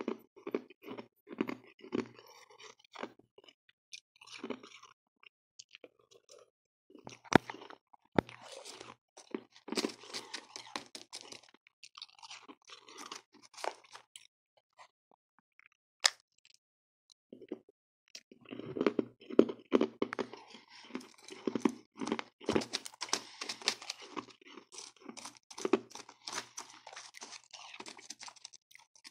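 Close-miked chewing of powdery freezer frost and crushed ice: rapid crisp crunches in bursts, with short pauses between mouthfuls.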